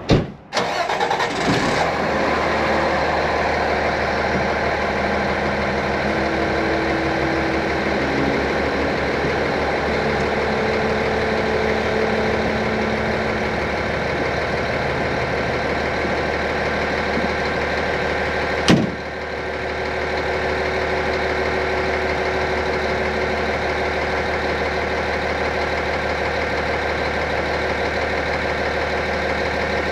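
Fire engine's diesel engine coming up to a steady run just after a loud clunk at the start. There is a single sharp click about 19 seconds in.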